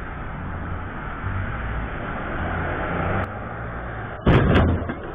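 A vehicle's engine and tyres rumbling steadily in the street, heard through a security camera's microphone. About four seconds in comes a sudden loud bang, with two sharp cracks close together.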